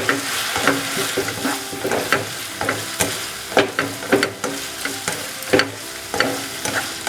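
Chopped onion, garlic, ginger, green chillies and curry leaves sizzling in hot oil with vinegar while being sautéed. A spoon stirs and scrapes the pan, making irregular clicks over the steady sizzle.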